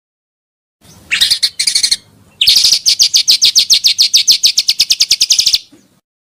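Pancawarna bird song: two short, high falling phrases about a second in, then a fast, even trill of about ten notes a second lasting some three seconds.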